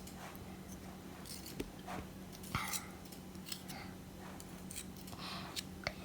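Quiet kitchen handling: scattered light clicks and taps of utensils and containers on a tabletop, over a faint steady hum.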